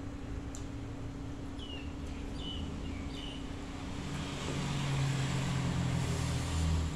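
A motor vehicle passing on the road, its engine rumble and tyre noise building from about four seconds in and stopping abruptly near the end, over a steady low hum.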